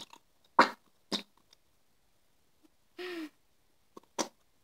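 Plastic bottle of white glue squeezed upside down over a ceramic bowl: short sputtering squelches as air and glue spurt from the nozzle, the loudest about half a second in, and a brief pitched squeak about three seconds in.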